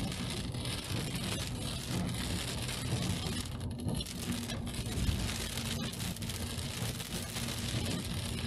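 Car driving in the rain: steady engine and road noise with a low hum, and rain falling on the car.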